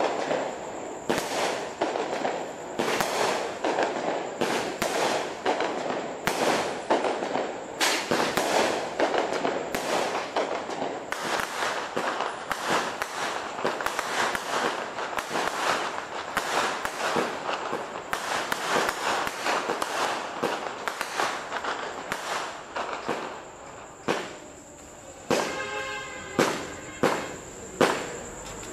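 Fisherman Fireworks 'Zeus' multi-shot firework firing a rapid string of shots, several a second, bursting into crackling stars. Near the end the shots thin out to single bangs about a second apart.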